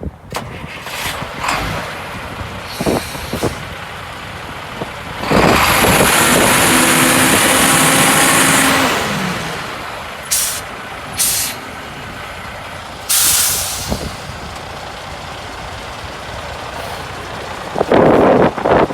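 1998 Western Star concrete mixer truck running, with several loud hisses of compressed air: one long hiss of about three and a half seconds beginning about five seconds in, then shorter bursts later.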